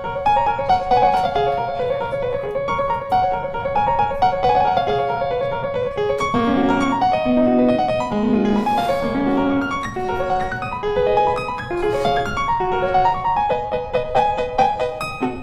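Instrumental background music led by piano, one note after another in an even flow, with lower notes coming in around the middle.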